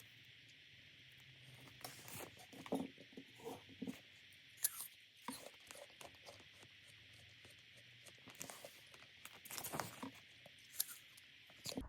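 Light rustling, scraping and clicking handling sounds in short clusters over a steady faint hiss.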